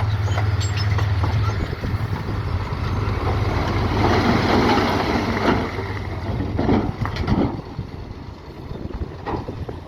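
Heavy diesel construction machinery working: a steady engine hum for the first second or two, then rough scraping and rumbling, with a few clanks about two-thirds of the way through.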